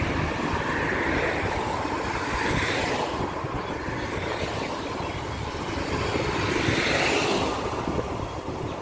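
Road traffic going past: a steady rush of vehicle noise that swells twice as cars pass, about a second in and again near the end.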